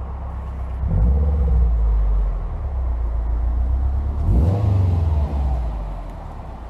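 2011 Subaru WRX's turbocharged flat-four engine pulling under acceleration: it gets much louder about a second in. The sound dips briefly and rises again about four seconds in, like a gear change, then eases off near the end.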